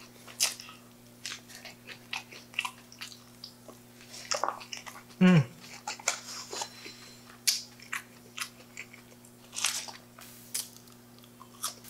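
Close-up mouth sounds of a person chewing a mouthful of Big Mac burger: scattered wet smacks and clicks, with a short hummed "mm" falling in pitch about five seconds in. A faint steady electrical hum lies underneath.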